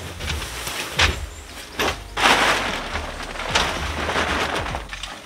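Nylon tent fabric rustling and flapping as it is pulled from its bag and shaken out across a wooden deck: a sharp snap about a second in, then a longer stretch of crinkly rustling from about two seconds in.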